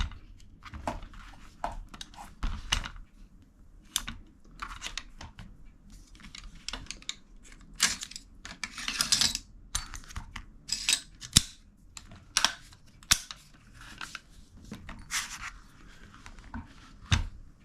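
An AR-15 being opened by hand, with irregular metal clicks, knocks and scraping as the bolt carrier group is slid out of the upper receiver. A sharp click comes a little past the middle, and a heavier knock comes near the end.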